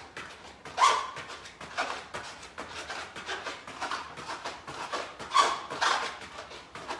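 A man breathing hard in quick, noisy puffs while doing mountain climbers, with two louder grunting exhales, about a second in and again near five and a half seconds.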